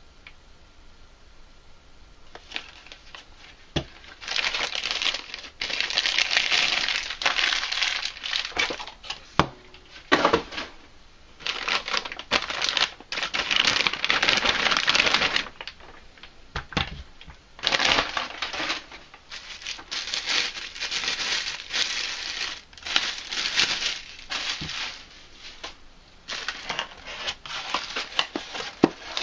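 Clear plastic bag crinkling and rustling in bursts of a few seconds as a cordless power tool is pulled out of it, with a few sharp knocks in between.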